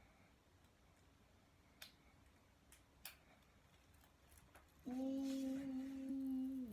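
A few faint sharp clicks, then a man humming one steady held note, loud, for nearly two seconds near the end.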